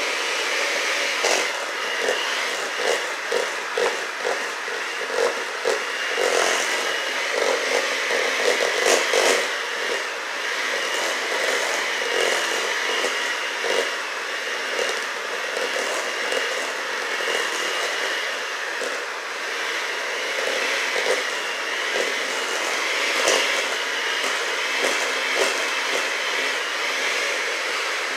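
Electric hand mixer running steadily through a thick, lumpy batter in a stainless steel bowl, its motor whirring with a faint high whine, while the beaters knock and scrape irregularly against the bowl.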